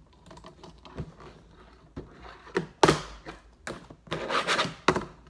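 Fingerboard knocking and sliding on a cardboard game box and the tabletop: several sharp clacks, the loudest about three seconds in, and a short scraping rub just after four seconds.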